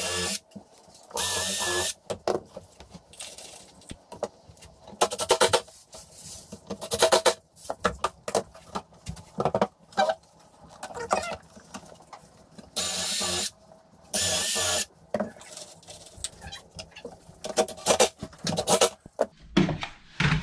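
Cordless drill run in a series of short bursts with a motor whine, drilling holes and driving screws into wooden boards. Clicks and rattles of handling the drill and screws come between the bursts.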